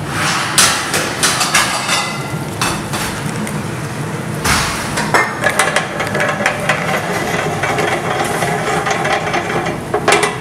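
Metal pots and utensils clattering, with many sharp knocks scattered through, over a steady background noise; a stainless steel saucepan is moved about on a gas hob's grate.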